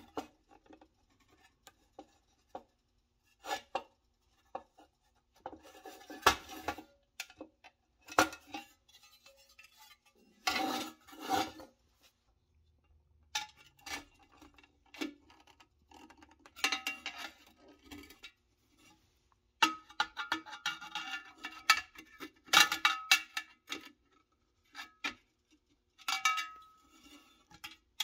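Pressed-steel toy truck parts being handled and pried apart: a flat-blade screwdriver scraping and clicking against the thin sheet-metal tabs of the chassis. The clinks and scrapes come in irregular bursts, some with a short metallic ring.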